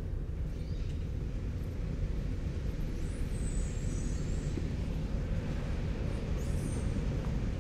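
Steady low rumble of city traffic, with faint high squeals about three seconds in and again near the end.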